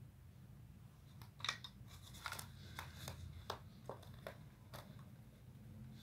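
A run of about a dozen short, sharp clicks and crackles, irregularly spaced over three or four seconds, over a faint steady low hum.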